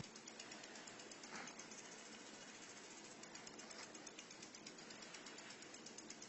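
Near silence: faint room tone with many light, irregular ticks.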